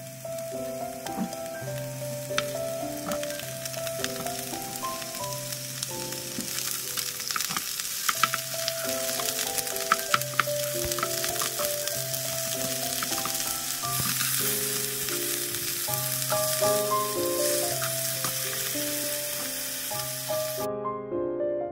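Napa cabbage wedges sizzling as they fry in oil in a nonstick pan, growing louder about six seconds in, with wooden spatulas clicking against the pan around the middle. Gentle piano background music plays throughout, and the sizzling stops just before the end.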